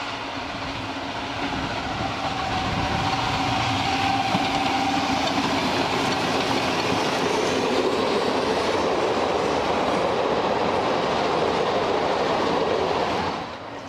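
Mh.6 narrow-gauge steam locomotive hauling its carriages past close by. The train's running noise grows over the first few seconds, holds steady, then cuts off suddenly near the end.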